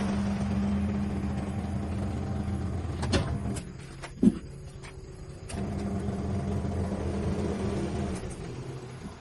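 A steady low mechanical hum that stops about three and a half seconds in and starts again about two seconds later, with a single sharp knock during the pause.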